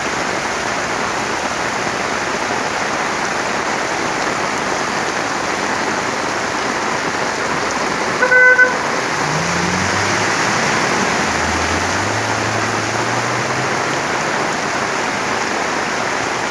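Heavy rain pouring steadily, with a short vehicle horn toot about eight seconds in, followed by a vehicle engine passing for a few seconds.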